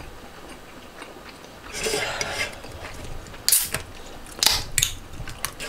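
Eating sounds: a short breathy rush about two seconds in, then a few sharp clicks of wooden chopsticks against a stainless frying pan as a mouthful of tteokbokki is taken.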